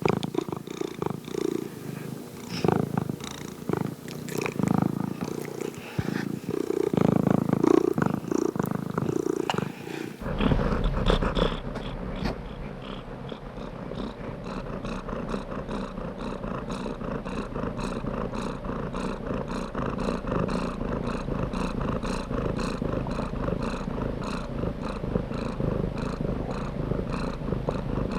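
Domestic cat purring close up. About ten seconds in, the sound changes from an uneven purr to a steady, evenly pulsing one.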